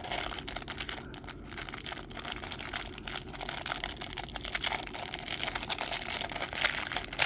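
A small parts bag crinkling and rustling as it is opened and handled, with many small irregular crackles.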